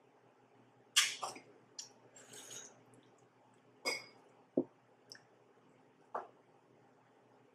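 About half a dozen scattered clicks and taps of metal chopsticks against a nonstick frying pan as noodles are picked up, the loudest about a second in, with soft eating noises in between.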